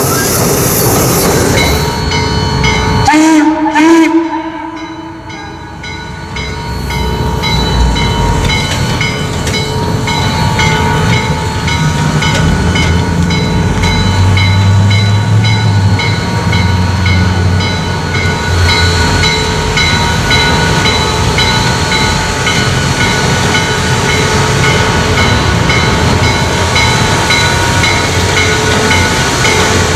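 Steam locomotive 1309 on the move, starting with passenger cars rolling past. About three seconds in its whistle gives a short, loud blast. The engine then works slowly ahead with a steady ringing repeated at an even pace and heavier low exhaust rumbling in the middle.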